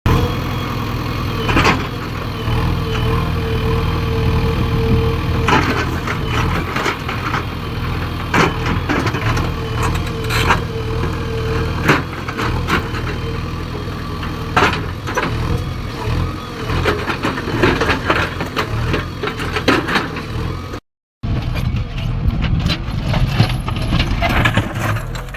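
Heavy diesel engine running steadily, with repeated sharp knocks and clanks, typical of stones being loaded.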